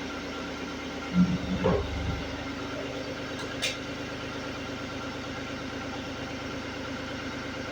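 Vacuum cleaner motor running steadily, blowing air. A few loud low thumps come about a second in, and a short click follows a moment later.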